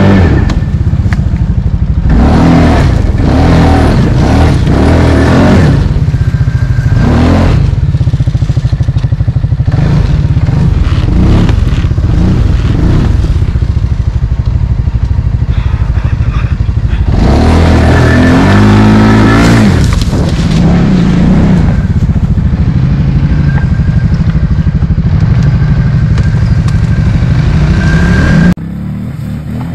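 Quad ATV engine running close-up from an onboard camera, revved in repeated surges that rise and fall in pitch, with the longest rev about two-thirds of the way through. Near the end the engine sound drops suddenly to a lower level.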